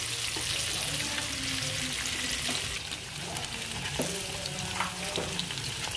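Hot cooking oil sizzling steadily around battered chicken and spring rolls as they deep-fry, with a few light clicks of metal tongs turning the pieces in the pan.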